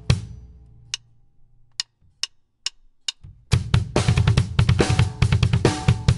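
Drum kit with a double bass-drum pedal: the last stroke of a phrase rings away, then a few sharp, evenly spaced clicks. About three and a half seconds in, a dense groove starts, with fast bass-drum strokes from the two feet alternating left-right under snare and cymbal hits.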